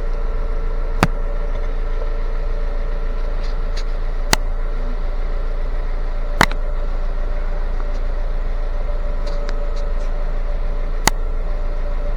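A 2017 Jeep Cherokee idling with a steady hum and noise, with a handful of short sharp clicks at uneven intervals.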